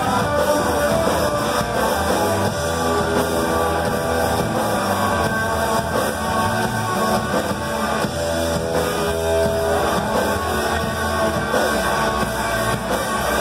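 Stoner rock band playing live and loud: electric guitar over bass and drums in a continuous dense wall of sound.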